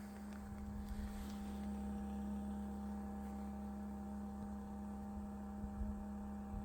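Bison hand water pump groaning: a steady low hum with several fainter overtones above it. It is the strange noise the pump makes after pumping stops, when the water drains out at the freeze-line drain hole, and its cause is unknown.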